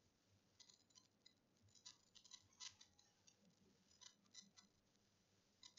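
Near silence, with a scattering of faint, short, irregular clicks and ticks.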